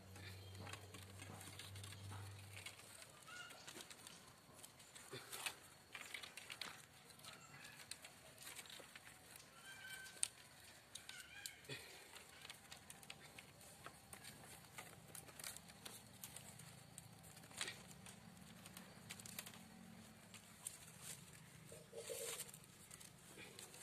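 Faint clicks and ticks of thin bamboo strips being handled and woven by hand, with a few faint bird chirps behind them about ten seconds in. A low hum runs for the first couple of seconds.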